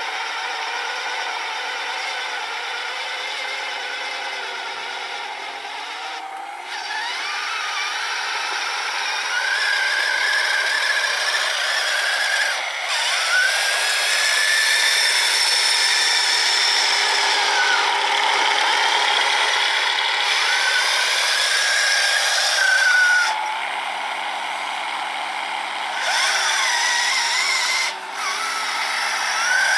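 Small electric motors of a 3D-printed RC snowblower and the RC truck carrying it, whining over a steady hiss, the whine gliding up and down as the speed changes. It grows louder about eight seconds in and dips briefly twice near the end.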